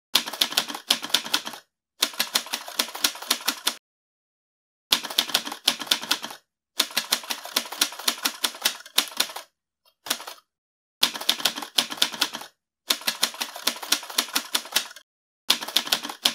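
Typewriter typing sound effect: quick runs of key clacks, about six a second, in bursts of one to two seconds separated by short dead silences.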